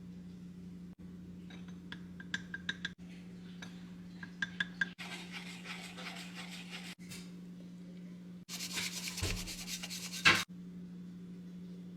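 Matcha preparation sounds: two quick runs of small taps of a utensil against a bowl or sieve, then rubbing and rasping scrapes, loudest near the end, over a steady low hum.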